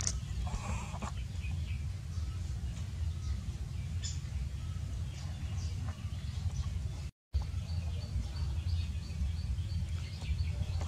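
A steady low rumble with faint, short, high chirps scattered over it, including a run of evenly spaced chirps about eight seconds in; the sound drops out briefly just after seven seconds.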